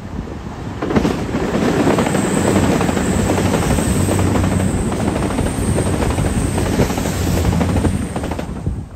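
CrossCountry Voyager diesel multiple unit passing close by, its underfloor diesel engines giving a steady low drone over the noise of its wheels on the rails. The sound swells about a second in and drops away sharply near the end as the last car goes by.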